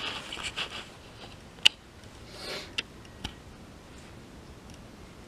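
A person moving about in a small, derelict room: scuffing and rustling, with a sharp click about one and a half seconds in and two softer clicks a little later, then a faint steady hiss.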